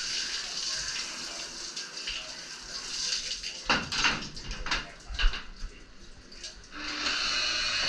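Garden hose spray nozzle hissing as water rinses a glassed surfboard, then sharp knocks and clatter as the hose is handled and hung up. Near the end a hand-held rotary polisher starts and runs steadily.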